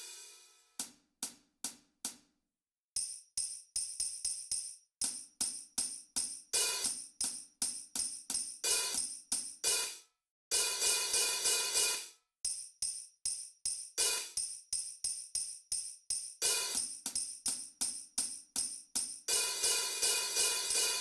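Hi-hat and tambourine played in rhythmic patterns. Quick bright strikes, several a second, alternate with longer sustained jingling stretches, broken by short silences about two seconds in and about ten seconds in.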